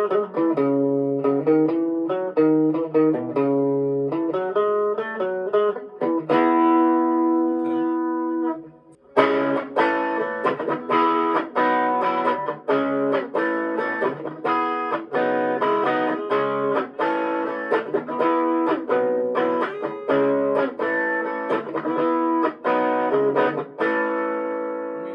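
Electric guitar played through a Fender Champion 20 amp on its most distorted Tweed setting with chorus and reverb added, picking chord riffs. One chord is held ringing for a few seconds about a quarter of the way in, there is a brief break, then the riffing resumes and the last chord rings out near the end.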